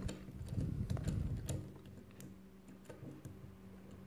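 Small plastic clicks and light knocks as a plastic toy figure is pressed into a miniature Hot Wheels Ride-On toy wheelchair on a wooden tabletop. The clicks are busiest in the first second and a half, then thin out to a few scattered ones.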